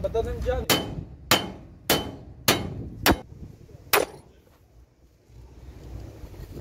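Hammer striking metal on a truck's front axle assembly: six sharp blows about half a second apart, the first ones ringing briefly, then they stop.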